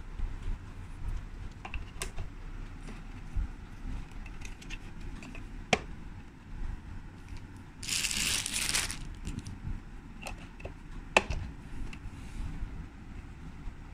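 Hard plastic bucket and its red plastic handle strap being handled: scattered clicks and knocks of plastic on plastic, with a rustle lasting about a second roughly two-thirds of the way through.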